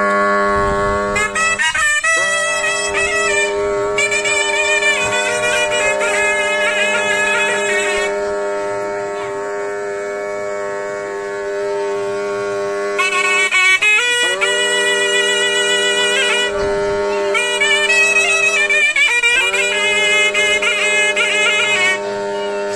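Wind-instrument music with a reedy sound: long held notes of a melody, broken by quick runs of changing pitch about two, fourteen and nineteen seconds in.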